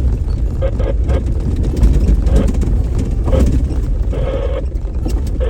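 Off-road vehicle driving over a graded dirt trail, heard from inside the cab: a steady low road and engine rumble with scattered knocks and rattles.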